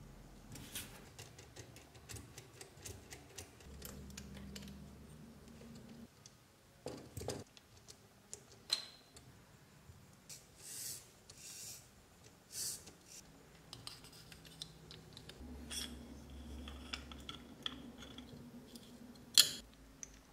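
Small screws being driven with a hex screwdriver into a metal model car chassis, with scattered clicks and light scrapes of metal parts and tools being handled, and one sharp click near the end.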